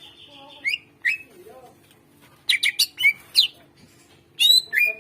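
Cucak ijo (green leafbird) singing in loud clusters of sharp, fast-gliding whistles and chirps: single notes about a second in, then a quick run about two and a half seconds in and another near the end, with short pauses between.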